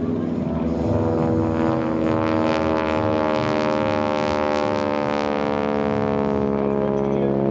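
North American SNJ-5 Texan's Pratt & Whitney R-1340 nine-cylinder radial engine and propeller droning steadily in an aerobatic pass, with a harsher, hissier edge that is strongest about midway as the plane passes closest overhead.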